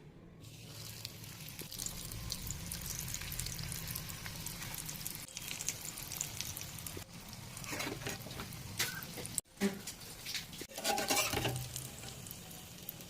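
Green-pea snacks frying in hot oil: a steady sizzle with fine crackling, cut off briefly about nine seconds in.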